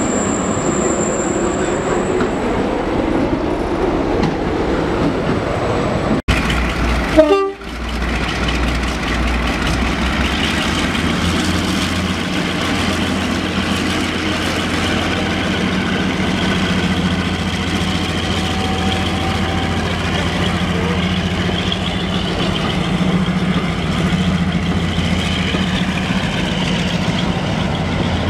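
A Class 73 locomotive runs past, then, after a cut, Class 42 Warship diesel-hydraulic D832 Onslaught runs with a steady low drone as it draws its coaches along the platform. A brief loud blast comes about seven seconds in, just after the cut.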